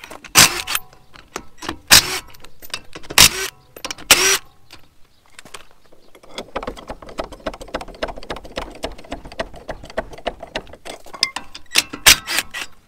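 Cordless impact wrench hammering the wheel nuts off a steel wheel in short loud bursts, four in the first four and a half seconds and more near the end. In between there is a long run of fast, light ticking and rattling.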